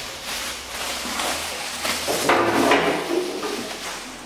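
Thin plastic bag crinkling and rustling in irregular bursts as it is pulled off a stand mixer and bunched up in the hand.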